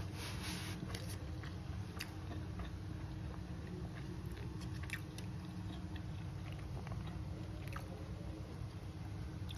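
Close-miked eating by hand: fingers pressing and gathering rice and duck meat on a paper food wrap, with soft chewing, heard as scattered small clicks and crackles. A steady low hum runs underneath.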